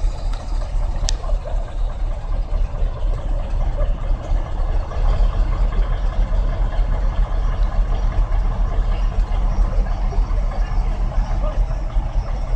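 Diesel engine of a crane running steadily under load as it lifts an overturned excavator, a continuous low rumble, with one sharp click about a second in.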